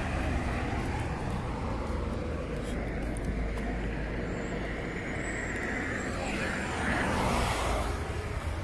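Road traffic noise: a steady low rumble of vehicles, swelling louder about seven seconds in as a vehicle passes.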